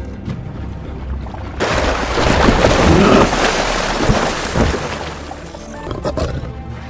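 Dramatic background music with a loud burst of splashing water about a second and a half in, lasting a few seconds.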